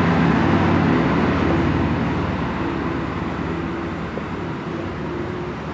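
Steady machine hum with a rushing noise, easing off slightly toward the end.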